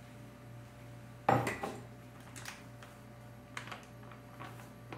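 Kitchen dishes and utensils handled while pancake mix is measured into a cup: one sharp knock about a second in, then a few light taps and clicks.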